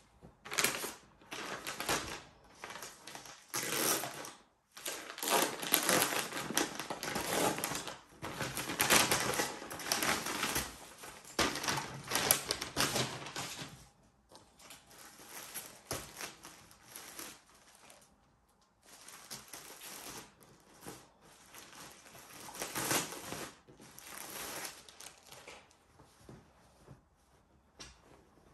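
Plastic clothing packaging rustling and crinkling as a parcel is handled and unwrapped, in a dense run of crackles for the first half and sparser, quieter handling after that.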